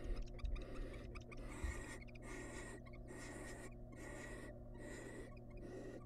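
Barn owls hissing inside a nest box: a breathy rasping hiss repeated about once a second with short breaks between, over a steady low electrical hum.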